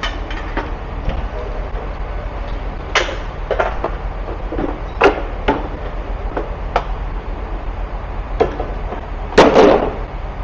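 Steady rumble of a train with a series of sharp knocks and clunks, the loudest a longer clatter near the end.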